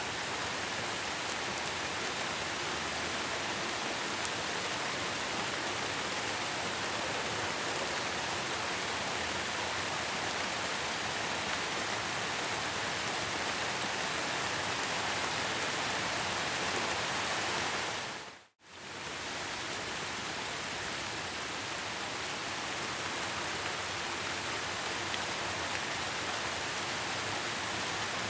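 Steady heavy rain falling in an even hiss. About eighteen seconds in it fades out to silence for a moment and fades back in, like the seam of a looped recording.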